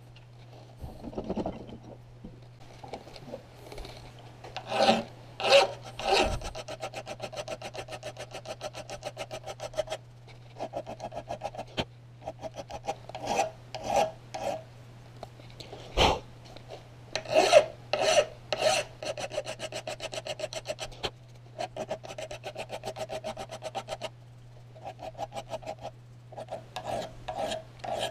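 Hand file rasping across the steel edge of a hatchet head clamped in a bench vise, in repeated strokes with a buzzing chatter, paused now and then between runs. A single sharp knock about sixteen seconds in.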